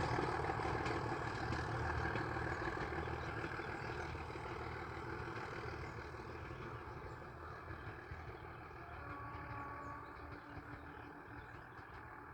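Narrow-gauge ZDM4A diesel locomotive and train running, a low engine rumble that fades steadily.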